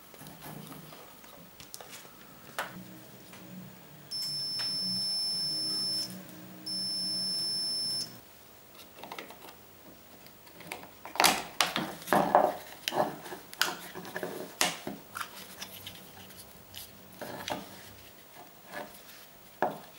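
Two long, high-pitched electronic beeps, the first about two seconds and the second about a second and a half, with a short gap between them. From about halfway through, a series of sharp clicks and knocks follows.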